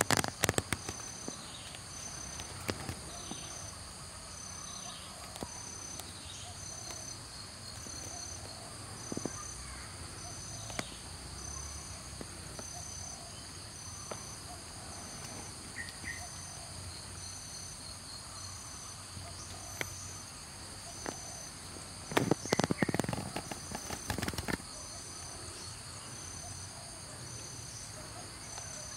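A steady chorus of tropical insects, with one high call pulsing evenly, a little slower than once a second. A few seconds of loud crackling and rustling break in near the end.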